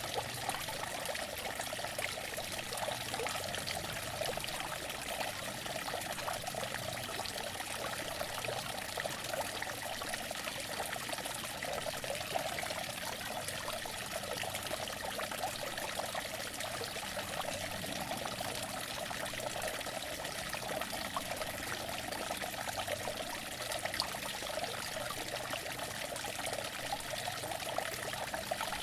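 Outdoor water fountain running: a steady splashing and trickling of falling water, even throughout.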